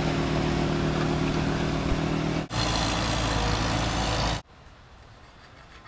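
Diesel engine of a snow-removal loader running steadily with a constant drone. After a cut about two and a half seconds in, it becomes a rougher, rushing machine noise. This cuts off suddenly a little after four seconds, leaving faint background.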